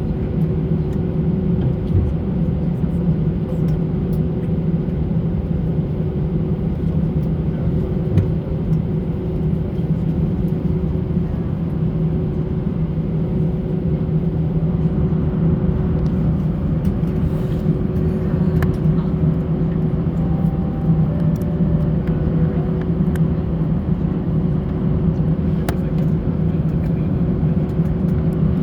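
Airbus A320 cabin noise while taxiing: a steady low rumble from the engines and airframe, with a faint steady hum above it.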